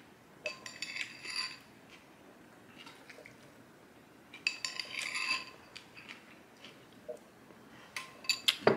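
A spoon clinking and scraping against a ceramic bowl as cereal is scooped up. It comes in three short bursts of clatter with a slight ring: about half a second in, around the middle, and near the end.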